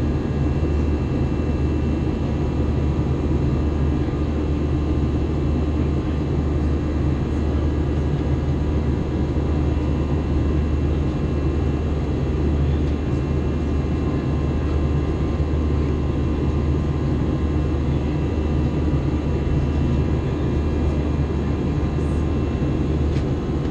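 Cabin noise of an Airbus A321 airliner in flight, heard inside the cabin: a steady, unchanging drone of the jet engines and rushing air, deepest at the low end, with a few faint steady whining tones above it.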